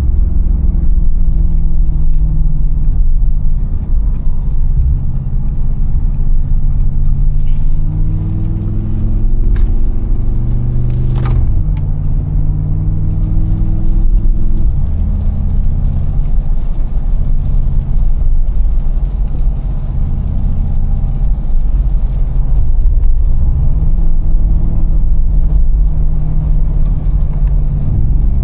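Mercedes-AMG G63's 4.0 L twin-turbo V8 under way, its note rising under acceleration and dropping sharply at an upshift about eleven seconds in, with a short crack. It climbs again briefly, runs steadily at cruise, then rises once more near the end.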